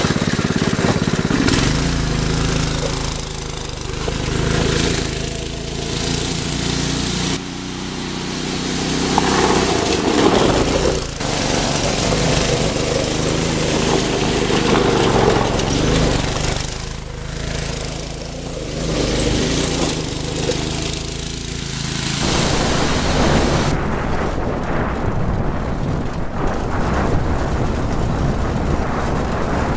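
Small 6 hp engine of a Yerf Dog off-road go-kart running and revving as the kart is driven, with sudden changes in level at several edits. For the last few seconds the sound is duller, with less of the high end.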